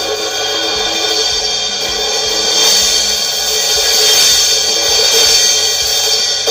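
A Paiste PST cymbal struck over and over with drumsticks, ringing in a continuous bright wash. It is a cracked cymbal whose crack has been cut out and sanded smooth to stop it spreading, and it keeps its brightness of tone.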